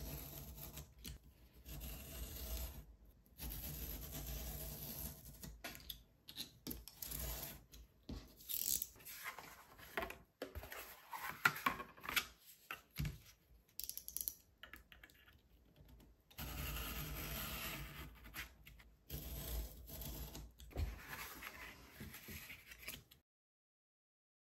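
Kraft cardboard handled and cut against a steel ruler on a plastic cutting mat: irregular bouts of scraping and rubbing, with sharp clicks and taps as the ruler and knife are set down and moved. The sound cuts off suddenly near the end.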